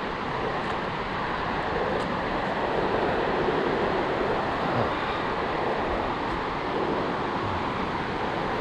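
Ocean surf washing onto the beach: a steady rushing noise that swells slightly in the middle and eases again, with some wind on the microphone.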